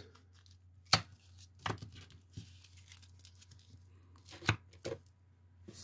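Clear plastic coin holders being handled, crinkling and clicking as a coin is picked up, in a few separate clicks and rustles, the loudest about a second in.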